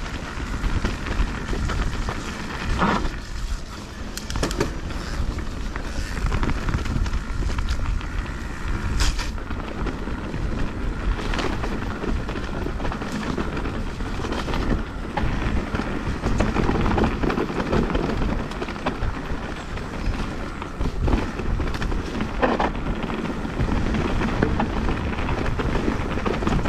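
Mountain bike riding down a rough trail: tyres rolling over dirt and stones with a steady rumble, and the bike rattling and knocking now and then.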